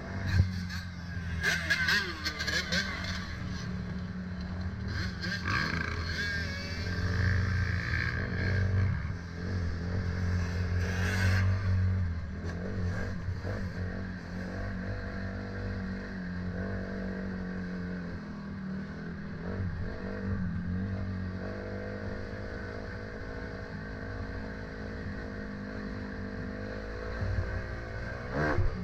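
A vehicle engine running steadily, with clattering in the first twelve seconds or so.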